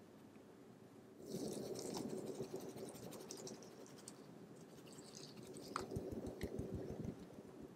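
Powdered sugar being shaken through a fine-mesh sieve: a soft, scratchy rustling that starts about a second in and comes again in the second half, with a run of light taps near the end.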